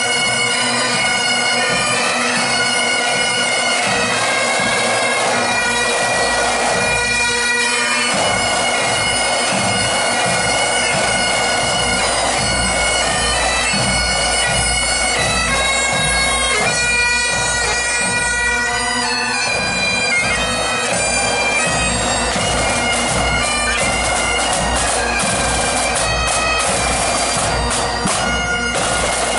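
Pipe band playing a march: Great Highland bagpipes with their steady drone under the changing chanter melody, backed by snare and bass drums.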